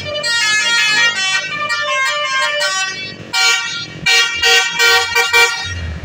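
A bus's telolet basuri musical horn playing a quick tune of short, shifting notes, then, about halfway through, a run of short, separate blasts.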